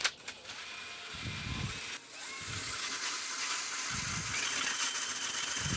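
Power ice auger boring through lake ice: a steady motor whine with the hiss of the blades cutting. It grows louder from about two seconds in as the auger bites deeper.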